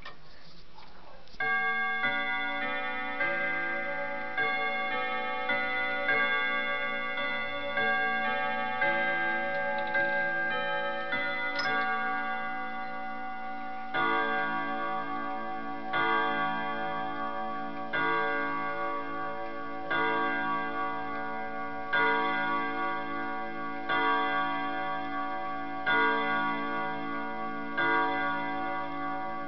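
Clock bells ringing. A chime tune plays for about twelve seconds, then the clock strikes the hour with one ringing stroke every two seconds.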